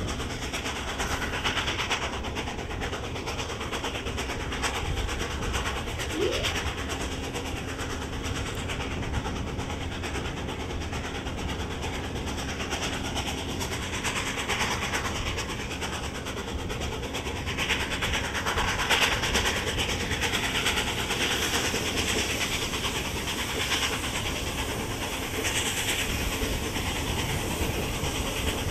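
Southern Pacific 4449, a GS-4 4-8-4 steam locomotive, working hard with a quick, rhythmic exhaust beat from its stack, heard from the window of a passenger car behind it along with the rumble and clatter of the cars on the rails. The exhaust grows louder a little past the middle.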